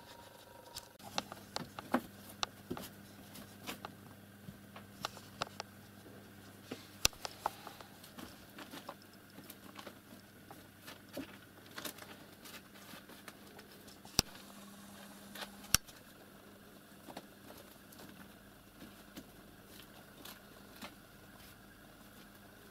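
Scattered light clicks and taps at irregular intervals, a few much sharper than the rest, over a faint low hum that starts about a second in and stops with a sharp click near sixteen seconds in.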